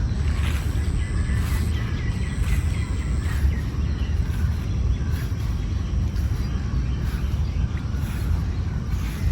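Faint scattered bird chirps over a steady low rumble of outdoor background noise, with a thin high steady tone that stops about three seconds in.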